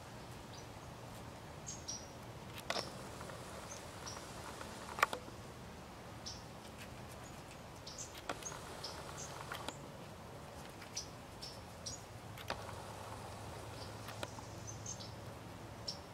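Quiet outdoor ambience with scattered short, high chirps from small animals and a few sharp clicks; the loudest click comes about five seconds in.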